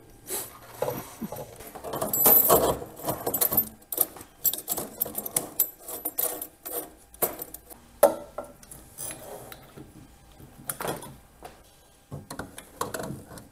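Irregular clinks, knocks and rattles of a kitchen faucet and its braided stainless supply hoses handled against a stainless-steel sink as they are fed through its mounting hole.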